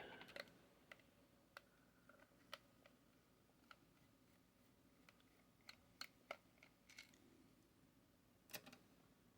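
Faint, irregular small clicks and taps of hard parts being handled on a workbench during the disassembly of a heat gun.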